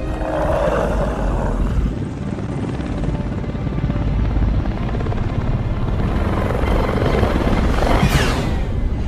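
Film soundtrack played in reverse: a hovering helicopter's steady rotor chop and engine rumble, with film score underneath and a sweeping whoosh near the end.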